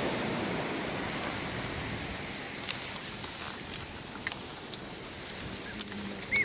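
Steady rush of water, like surf and splashing, easing slightly, with scattered sharp splashes and ticks in the second half.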